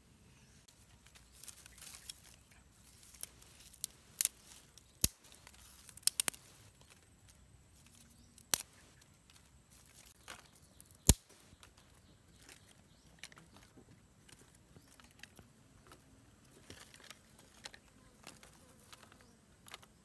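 Scattered sharp clicks and snaps of dry twigs and sticks being handled and laid in a stone fire pit, over a quiet background. The loudest cluster comes a few seconds in, with one more sharp snap about halfway through.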